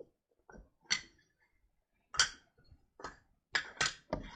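Irregular clicks and knocks from small objects being handled, about eight in all, the loudest about two seconds in and several in quick succession near the end.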